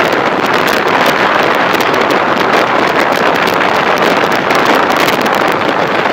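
Loud, steady wind noise rushing over an unshielded microphone, with constant crackling from the buffeting.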